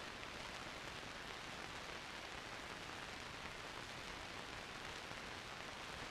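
Steady, even hiss like static with nothing else in it: the background noise of an old film soundtrack.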